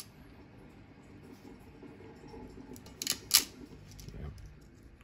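Hand ferrule crimper closing on bootlace ferrules on stripped cable cores: two sharp clicks close together about three seconds in, with light handling noise around them.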